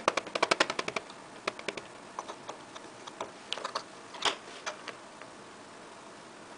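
Metal teaspoon scraping and tapping in a compact of crumbled pressed-powder blush and against a small plastic jar while scooping the powder in. A quick run of light clicks in the first second, then scattered single ticks.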